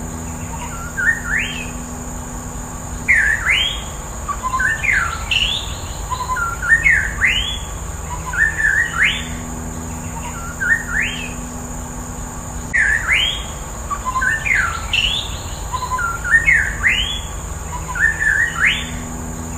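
White-rumped shama singing short phrases of quick rising whistled notes, repeated about every two seconds, over a steady high hiss.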